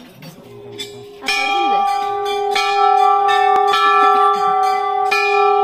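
Large bronze temple bell rung by hand, starting a little over a second in and struck again several times. Each stroke renews a sustained ring with many bright overtones.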